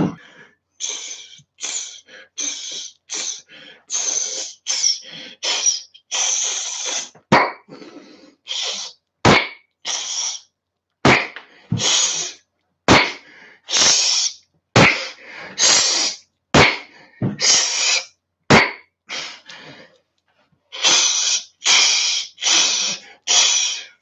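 A man blowing out short, forceful hissing breaths through his teeth, dozens in a row, while lifting dumbbells, with a short pause near the end. Several sharp knocks come about every two seconds through the middle stretch.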